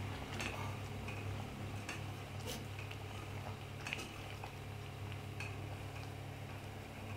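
A spoon stirring boiling sambar in an aluminium pot, knocking against the pot in several irregular clicks over a steady low hum.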